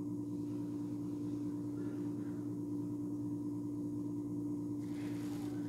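A steady electrical hum with one strong low tone, and a faint brief rustle near the end.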